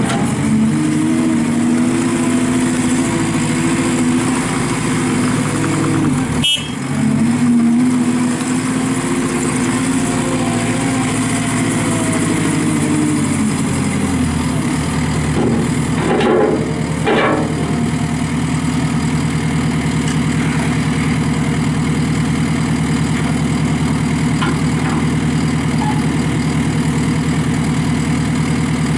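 JCB 260T skid steer's diesel engine running at raised revs, then dropping to a lower steady speed about fourteen seconds in. A couple of short clatters follow soon after.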